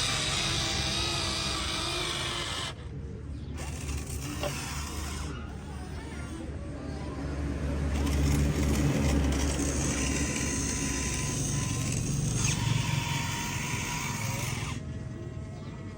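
Small electric motors of a radio-controlled excavator working. They whine in several spells that start and stop with short pauses, the pitch shifting as the motors load up.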